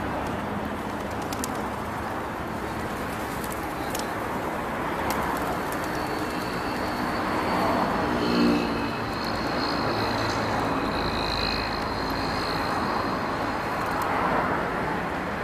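Steady outdoor traffic noise with birds calling over it, and a short low pitched call about eight seconds in.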